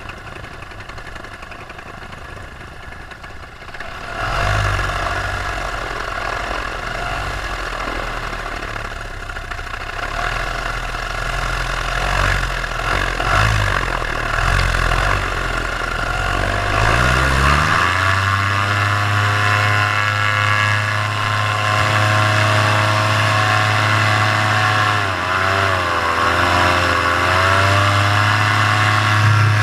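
Paramotor engine running at low power, then opened up about four seconds in. Around seventeen seconds its pitch climbs quickly to a steady full-throttle run, which wavers briefly near twenty-six seconds before settling again.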